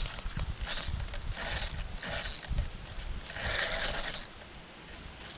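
Spinning fishing reel cranked in several short spells, its gears ratcheting, while a hooked fish is fought and reeled in on light tackle.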